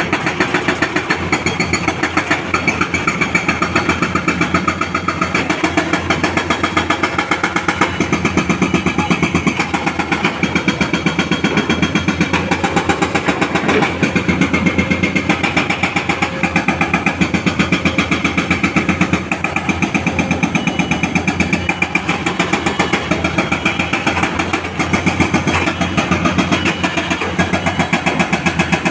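Diesel engine of excavation machinery running steadily under load, with a fast even pulsing that does not let up.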